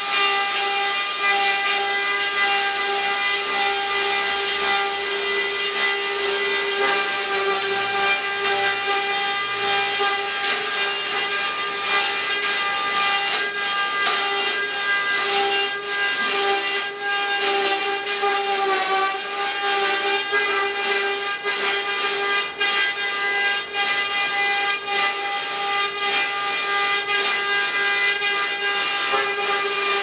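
Log-rounding machine planing a spinning log: the cutter head runs with a steady high whine over a hiss of wood chips. The pitch sags briefly about nineteen seconds in and then recovers.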